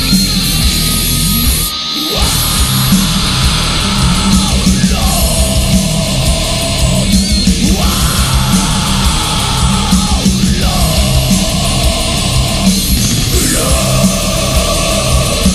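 Heavy stoner rock music played by a full band, with steady drums throughout. The music drops out briefly about two seconds in, then a riff repeats roughly every two and a half seconds.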